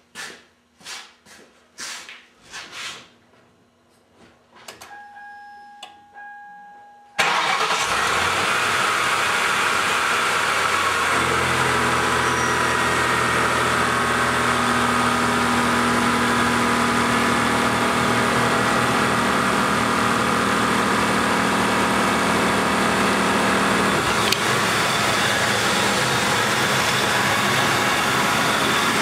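A 1995 Lincoln Town Car's 4.6-litre V8 is started about seven seconds in, after a few soft clicks and a brief steady tone. It then runs steadily with the belt-driven fan and serpentine belt turning, on a freshly replaced belt tensioner. A low hum in the running sound drops away about two-thirds of the way through.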